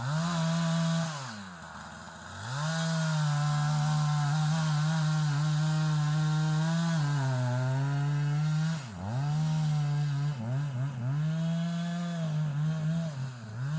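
Two-stroke chainsaw running at high revs. It eases off and comes back up about a second and a half in and again near nine seconds, then is revved up and down several times near the end.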